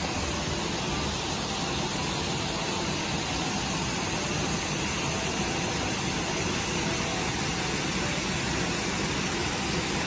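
Waterfall rushing: a steady, even wash of falling water with no breaks.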